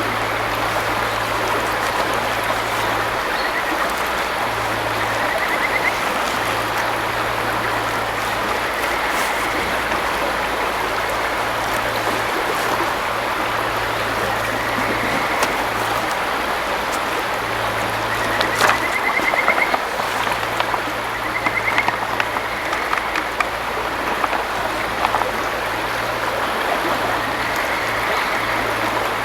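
River water flowing steadily over stones, an even rushing noise. A few faint short rising trills sound now and then over it.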